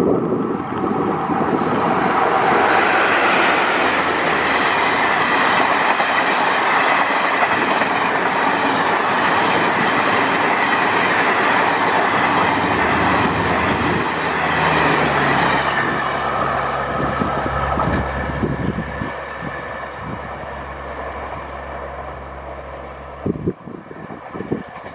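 Express passenger train of ICF coaches behind a WAP4 electric locomotive passing close at speed, a loud steady rush of wheels running on the rails. The sound fades from about two-thirds of the way through as the train recedes.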